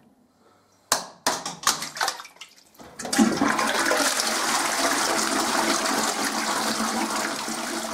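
A few clunks and knocks, then about three seconds in a toilet flushes: a loud rush of water swirling down the bowl that slowly tapers off near the end.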